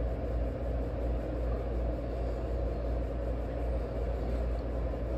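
Steady low rumble and noise of a New York City Q subway train, even throughout with no distinct clanks or announcements.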